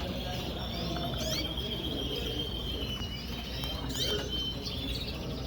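Canaries in show cages singing: a long, steady trill with quick chirps over it, against a low hum of hall noise.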